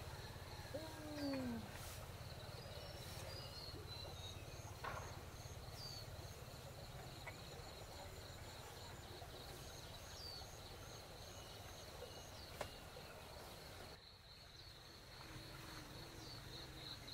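Insects chirping steadily in a fast, rhythmic high trill, with a few short bird chirps over a low background rumble. About a second in, a baby gives a short falling whine.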